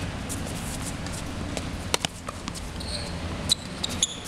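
Tennis balls being struck by racquets and bouncing on a hard court: a few separate sharp pops, one about two seconds in and several close together near the end, over a steady low background rumble.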